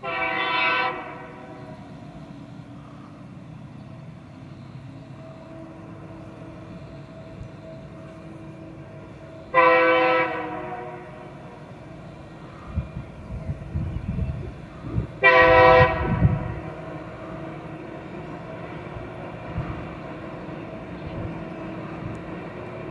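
TasRail TR-class diesel-electric locomotive sounding its horn three times: at the start, about ten seconds in and about fifteen seconds in, each blast about a second long. Between the blasts its diesel engine drones steadily as it works the freight train uphill.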